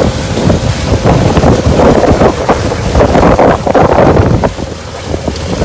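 Wind buffeting the phone's microphone as a pontoon boat runs across open water, over the rush of the wake along the hull.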